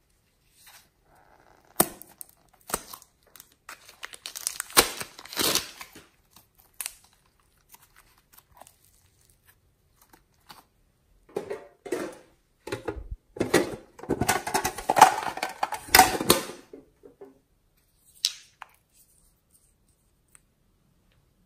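Plastic piping bag crinkling and slime crackling as the slime is squeezed out by hand, in two bouts of dense crackles.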